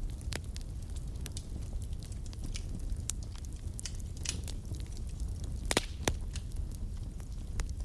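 Wood fire burning in a fireplace: a steady low rumble of flames with scattered sharp crackles, and two louder pops a little over two-thirds of the way through.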